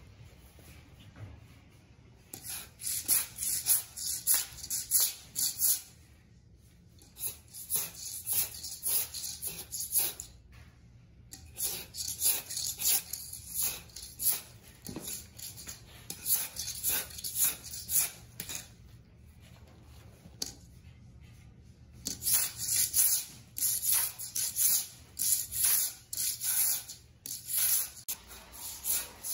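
Hand floor scraper blade scraping dried glue and backing strips off a concrete floor, in runs of quick repeated strokes broken by short pauses.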